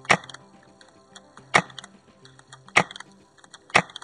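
Tokyo Marui MK23 airsoft pistol fired four times, single sharp cracks about a second apart, over background music.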